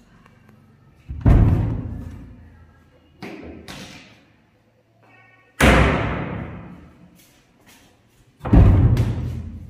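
Dark laminate wardrobe doors banging shut. There are three heavy thuds, about a second in, midway and near the end, each echoing off bare walls, with two lighter knocks between the first and second.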